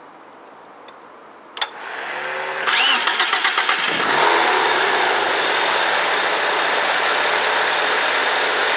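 Mitsubishi Eclipse's 4G63 four-cylinder engine being started: a sharp click, then the starter cranking in a rhythmic pulse for about a second before the engine catches about four seconds in and settles into a steady idle.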